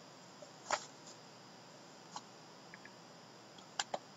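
A shrink-wrapped cardboard trading-card box handled and turned over in the hands, giving a few faint, short clicks and taps of the wrap and box, the last two close together near the end.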